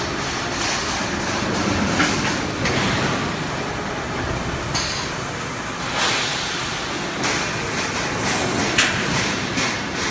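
Automatic HVAC duct production line running: steady machine noise with sharp knocks every second or two.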